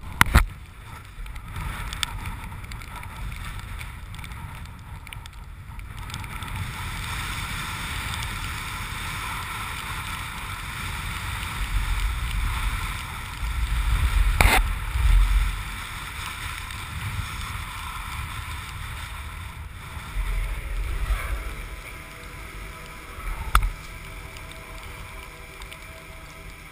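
Wind rumbling on an action camera's microphone over a steady whirring drone, with heavier gusts in the middle and later on. A sharp knock comes about halfway through and another near the end.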